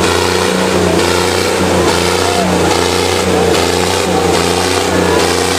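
Tractor engine running steadily and evenly, with a pulsing beat.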